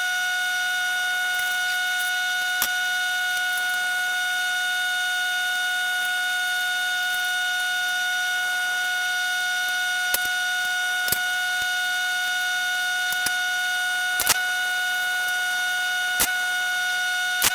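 Steady, even high-pitched electric buzz from a welding machine during aluminium welding, with a few sharp clicks scattered through it.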